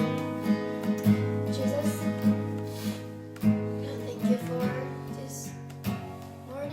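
Acoustic guitar strummed in sustained, ringing chords, growing gradually quieter.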